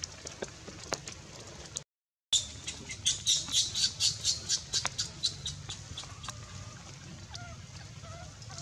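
Baby macaque screaming in a fast run of short, shrill cries, about four or five a second. The cries start after a brief dropout about two seconds in and die away past the middle, leaving fainter wavering calls.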